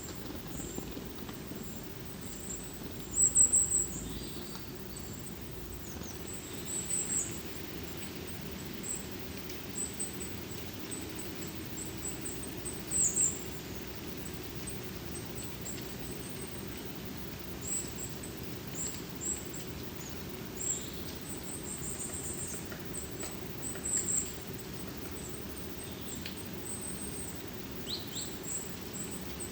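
Forest ambience: small birds, mainly tits, giving short, very high-pitched calls scattered throughout, the loudest about three and thirteen seconds in, over a steady low hiss of the forest.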